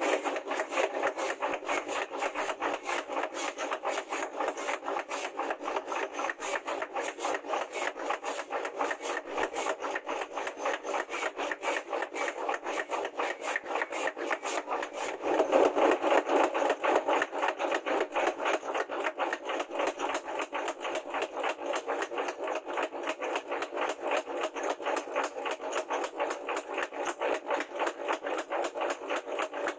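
Mechanical power hammer pounding red-hot steel on its anvil die, a rapid, even beat of several blows a second, drawing the bar out into a blade. The blows get louder about halfway through.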